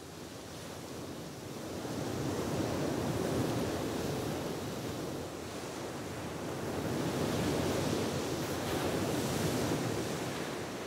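Rushing noise like ocean surf, swelling and easing off twice.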